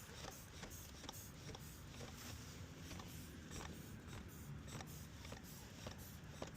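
Faint, irregular clicks and light taps over a low rumble, from a locksmith's tools working a locked car door during a lockout.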